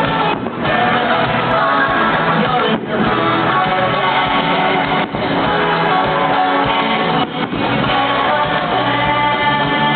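Loud music: a song with singing over guitar, playing steadily with a few brief drops in level.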